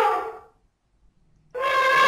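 Recorded elephant trumpeting, played twice: one long trumpet call slides down in pitch and fades about half a second in. The same call starts again about a second and a half in.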